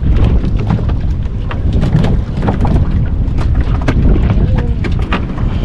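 Wind buffeting the microphone on a fishing boat at sea: a heavy low rumble, with many sharp knocks and splashes throughout.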